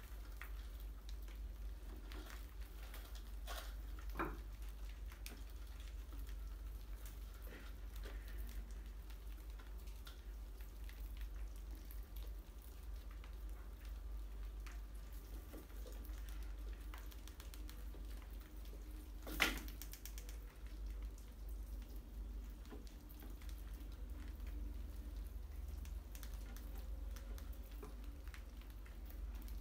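Rats scrabbling about, claws clicking and scratching on tile, brick and glass jars, as a scatter of faint crackles over a steady low hum. A sharp knock comes about 19 seconds in and a smaller one about 4 seconds in.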